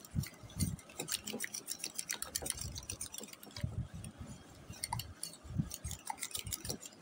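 A utensil stirring thick cream in a glass bowl, with light, irregular ticks and clinks against the glass several times a second and soft low thumps.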